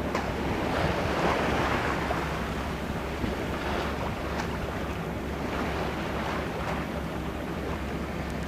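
Sea water rushing and splashing along a yacht's hull under way, surging every second or two, with wind on the microphone and a steady low hum underneath.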